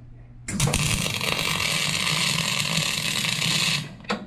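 Miller-Matic 252 MIG welder's arc crackling steadily for about three seconds as a bead is laid on a steel D-ring and hitch plate, starting about half a second in and cutting off sharply, then a brief second blip of arc just before the end.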